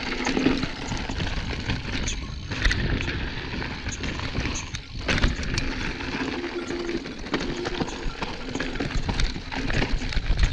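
Mountain bike riding fast down a rocky gravel trail: tyres crunching over loose stones and the bike rattling and knocking over bumps, with wind rushing over the microphone.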